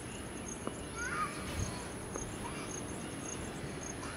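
Outdoor ambience with steady high insect buzzing and repeated short chirps, and a brief bird call about a second in.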